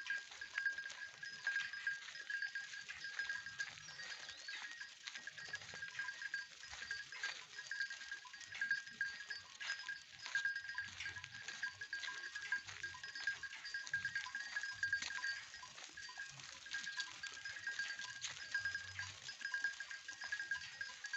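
A herd of local goats moving and grazing through forest undergrowth, with rustling and clicking and an occasional low bleat, over a steady, high, pulsing trill.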